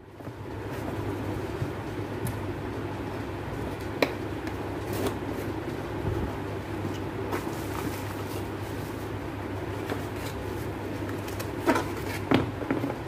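Cardboard laptop packaging being handled and opened, with a few sharp taps and rustles, two of them close together near the end, over a steady low hum.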